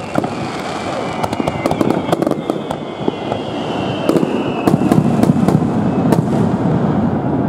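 Aerial display fireworks bursting: a dense run of sharp crackles and pops over a continuous low rumble of shell bursts, growing louder about four seconds in. A faint high whistle slides slowly down in pitch in the middle.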